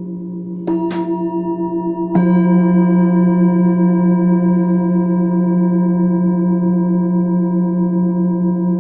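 Struck metal sound-healing instruments ringing. Three strikes come in the first two seconds or so over tones that are already sounding, and then the layered tones sustain with a slow pulsing wobble.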